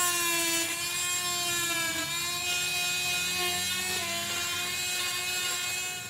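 DeWalt oscillating multi-tool running with a scraper blade, scraping old floor adhesive: a steady high whine, its pitch dipping slightly a couple of times.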